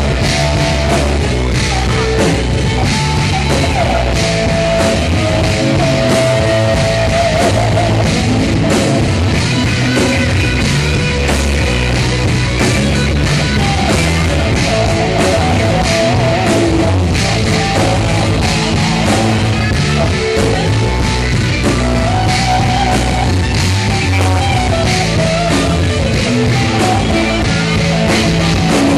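Hard rock band playing live and loud: electric guitar lines over bass and drums, heard through the club's amplification from within the crowd.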